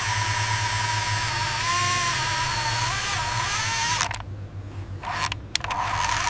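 Mechanical whirring with a wavering high whine over a low hum and hiss, like a small motor or power tool running. It cuts out abruptly about four seconds in, sputters briefly a couple of times, and starts again near the end.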